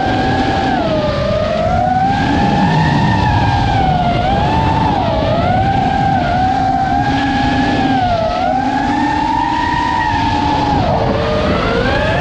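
Electric motor and propeller of a Flightline Spitfire RC warbird running in flight, a steady whine whose pitch dips and rises every second or two with throttle and manoeuvres, over a low rushing noise.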